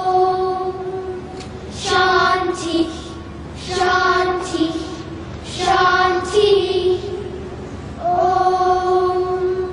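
Children's choir chanting a Sanskrit sloka in unison, in short phrases about every two seconds, each ending on a long held note.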